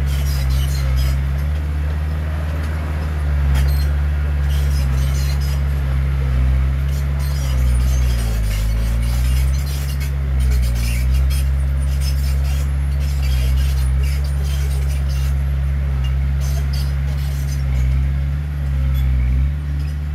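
Heavy diesel engine of earth-moving machinery running steadily under load, its pitch dipping and rising again about halfway through, with scattered metallic clanks and rattles.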